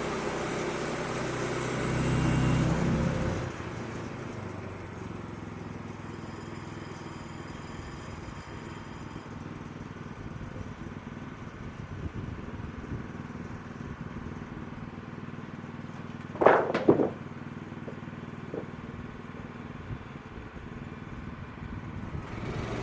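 Sawmill engine running, louder for the first few seconds and then settling to a steadier, quieter run. A sharp double clank stands out late on.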